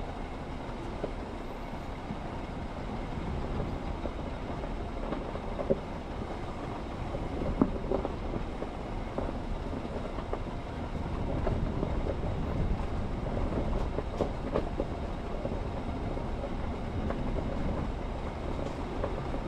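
Vehicle driving a forest road: a steady low road rumble with scattered knocks and clicks from bumps and stones under the tyres.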